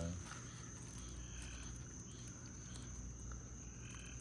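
Faint background of short animal chirps, a few of them, over a steady high thin tone and a low hum.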